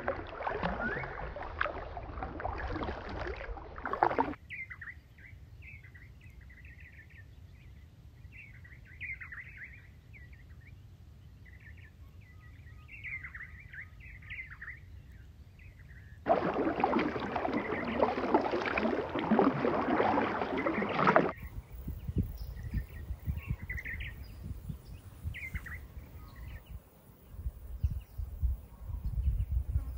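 A canoe paddle working the water for about the first four seconds. Then birds chirping and calling for about twelve seconds, then a loud rushing noise for about five seconds, then a low rumble with a few more scattered bird calls.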